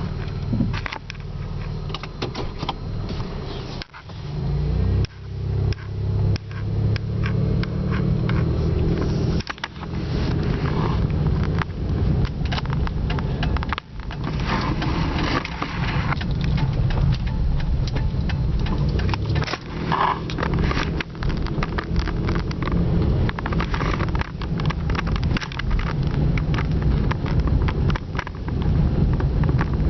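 Car driving, heard from inside the cabin: a steady low road and engine rumble with frequent small knocks and rattles.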